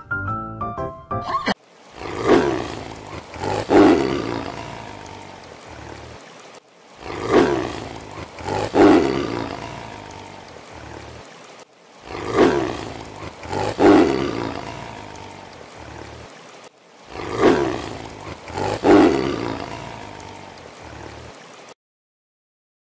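Tigers roaring: two loud roars about a second and a half apart, each fading into a low rumble, with the same pair repeated four times at even spacing.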